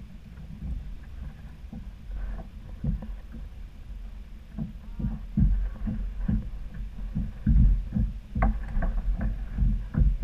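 Irregular low knocks and bumps on a fishing kayak over a steady low rumble of water and wind, while a small fish is brought aboard.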